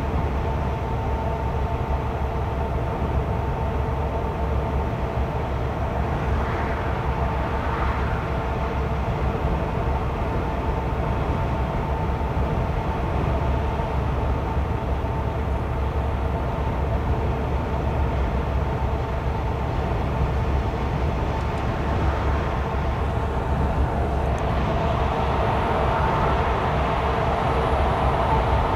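Steady engine and road noise inside a vehicle's cab while it cruises at motorway speed: a low rumble with a hum of several constant tones over it, and a rushing noise that grows louder near the end.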